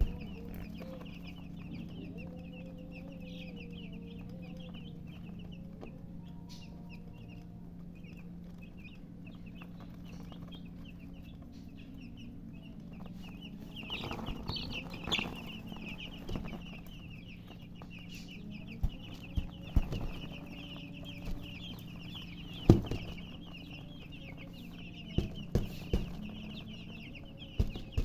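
A brood of chicks peeping continuously in a dense chorus of short, high chirps, with a hen clucking low now and then. A steady low hum runs underneath, and there are a few sharp knocks in the second half.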